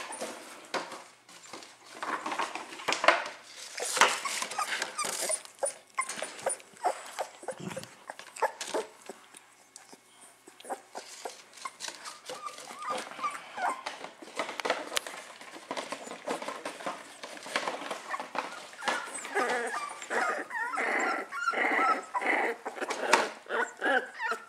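Young puppies grumbling, whining and yapping in play while they are handled, with scuffling and handling noises. The calls come thickest near the end.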